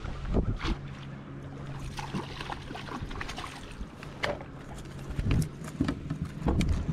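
Water lapping and trickling against a fishing kayak's hull, with scattered sharp knocks and clicks from the boat and gear, over a low steady hum.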